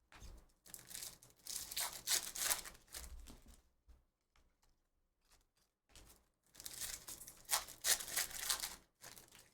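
A foil trading-card pack being torn open and its wrapper crinkled, in two bursts of ripping and crackling a few seconds apart.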